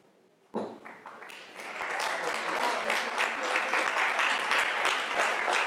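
Audience applauding: clapping starts about a second in and swells into full, steady applause.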